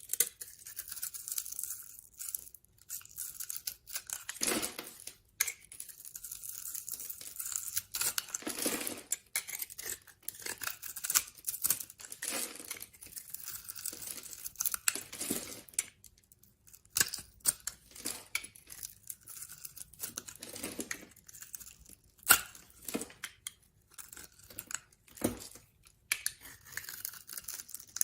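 Knife chopping and cutting through bars of soap: an irregular run of crisp crunching and crackling strokes, with a few sharp knocks of the blade.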